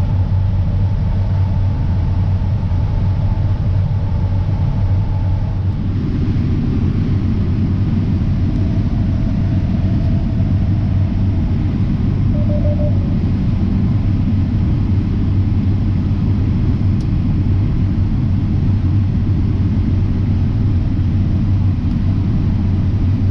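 John Deere X9 1000 combine, with its 13.6-litre diesel, harvesting corn, heard from inside the cab as a steady, loud, low rumble and drone. About six seconds in the machine noise gets fuller and stays that way.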